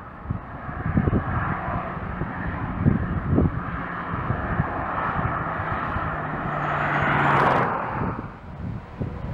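Distant jet engine noise from an Airbus A321 with CFM56 engines rolling out on the runway after landing. It is a steady rush that builds to a peak about seven seconds in, then drops away sharply about a second later. Low thumps of wind buffet the microphone throughout.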